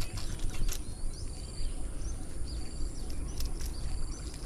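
Small birds chirping now and then in short calls over a low rumble of wind on the microphone and a steady high hiss, with a few faint ticks.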